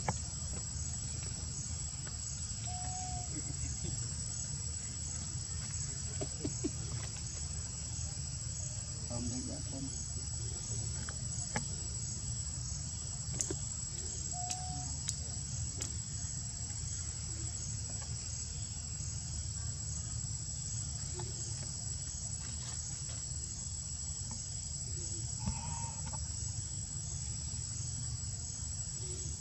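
Insects chirring in a steady high-pitched drone with a fast even pulse, over a low steady rumble. A few faint short calls come and go.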